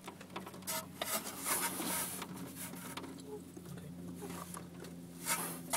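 Handling noise from hands and tools working around the belt tensioner: scattered light clicks, scrapes and rubbing, with a sharper knock near the end, over a faint steady hum.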